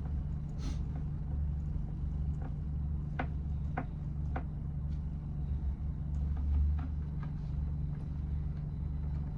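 Scattered light clicks and taps from handling and screwing up solar cable connectors, about a dozen, irregularly spaced, over a steady low hum.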